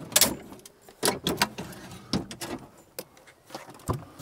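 Irregular sharp clicks and knocks from an Overlander car fridge on a pull-out slide being handled, with the lid being opened near the end.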